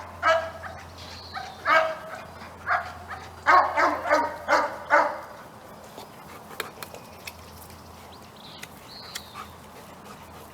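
A dog barking about eight times in the first five seconds, short sharp barks, then only a few faint clicks.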